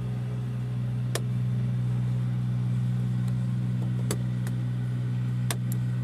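1996 GMC Yukon's 5.7L Vortec V8 idling steadily, heard from inside the cab, with a few light clicks.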